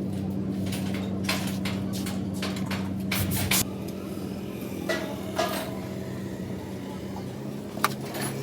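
Motorcycle engine running at a steady idle, with a series of sharp metal clinks and knocks over it. The engine sound drops a little about a third of the way in.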